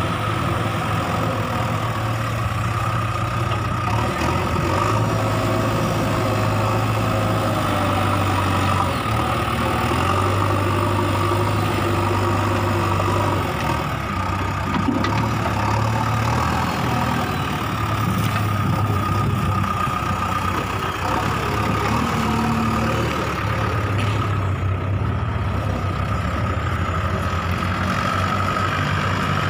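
Diesel engines running steadily at low revs: a JCB 3DX backhoe loader's engine, and near the end a tractor's engine under load as it pulls off with a heaped soil trolley.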